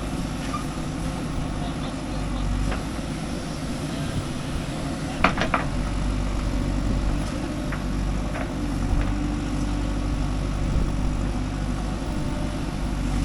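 Diesel engine of a JCB 3DX backhoe loader running steadily while it works, with a quick run of three sharp metallic clanks about five seconds in and a few lighter knocks after.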